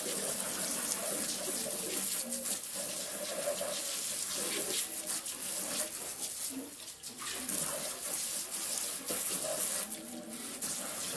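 Water running from a kitchen tap into the sink while dishes are washed by hand, with a few short knocks.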